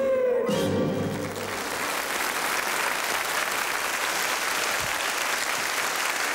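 A song ends on a sung note held over the band for about a second and a half, and a studio audience applauds, growing into steady clapping that carries on.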